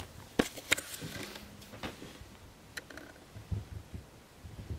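Kittens scampering and pouncing on carpet and a sofa: a few sharp clicks scattered through and soft low thumps in the second half.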